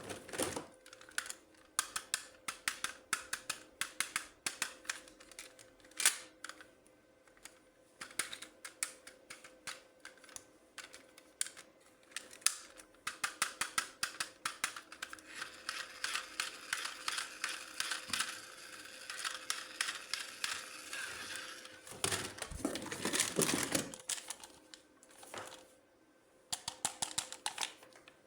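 Plastic toy packaging and toy parts handled close to the microphone: rapid small clicks and taps. A stretch of steady crinkling rustle runs through the middle, and a louder burst of handling comes near the end.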